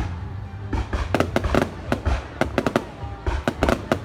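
Aerial fireworks going off: rapid clusters of sharp bangs and crackles over a low rumble, with a short lull about half a second in.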